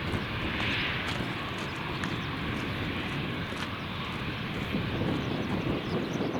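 Airliner engine noise, a steady rushing roar from a passing plane, with wind buffeting the microphone underneath.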